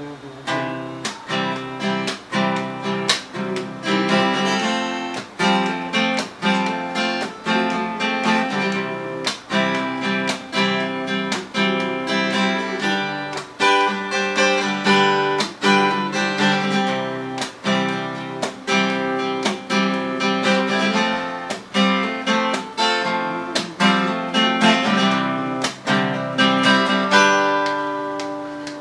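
Acoustic guitar strummed in a steady rhythm, about two strokes a second, with a melodica playing held notes over it.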